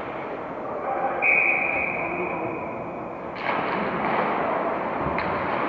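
A whistle blown once, a steady high note held for nearly two seconds, over the murmur of a crowded ice rink. About a second after it stops, the rink gets louder with the noise of play on the ice, and there is a sharp knock near the end.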